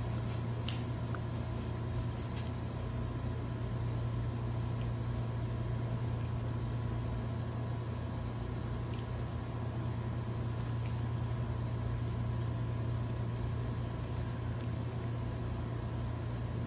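A steady low hum with faint scattered ticks and rustles from a cat batting a tinsel-and-pom-pom wand toy on a tile floor.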